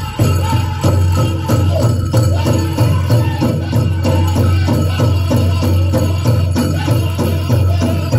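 Powwow chicken dance song: a steady drumbeat under a group of singers chanting, with jingling over the beat.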